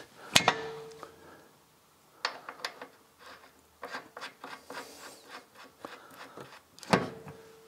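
Small metal clicks and scrapes of a washer and nut being fitted and spun by hand onto the rear axle mounting bolt, with a sharp clack about half a second in and another near the end.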